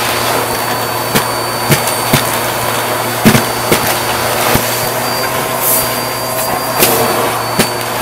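Bissell vacuum cleaner running through its hose and crevice tool: a steady rushing noise with a thin high whine. About eight sharp clicks of coins striking the plastic nozzle cut through it at uneven intervals.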